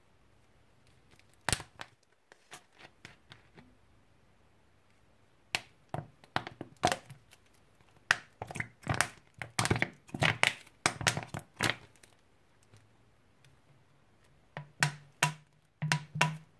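Plastic Coca-Cola bottle crackling and popping in the hand as cola is poured out of it, in irregular clusters, with a sharp crack about a second and a half in.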